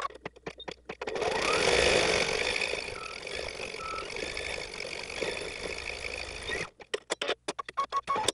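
Computerised embroidery machine stitching out a design, played back sped up. Rapid needle clicks run for about a second, then give way to a louder continuous whirring, and the rapid clicking returns near the end.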